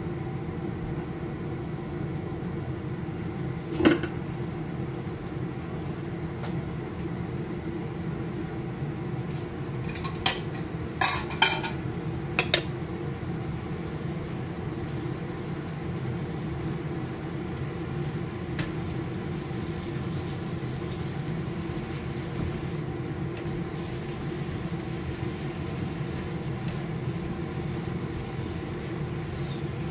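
A few sharp clinks of a utensil against a frying pan over a steady mechanical hum: one clink about four seconds in, then a quick cluster of several between about ten and twelve and a half seconds in.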